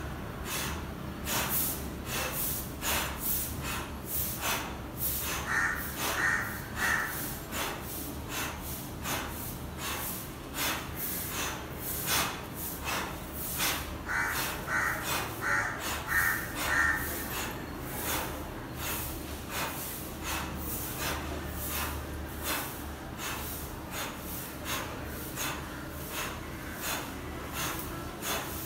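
A man's forceful breaths blown out in a quick, steady rhythm, one with each toe-touch rep of a windmill warm-up exercise. A bird calls in the background twice, a few seconds in and again around the middle.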